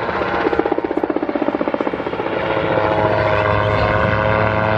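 Gyrocopter in flight. For about the first two seconds its rotor blades beat rapidly, about ten a second. After that its engine and propeller give a steady drone.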